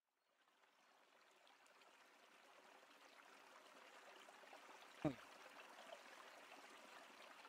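Faint steady hiss fading in, with one short sweep falling steeply in pitch about five seconds in.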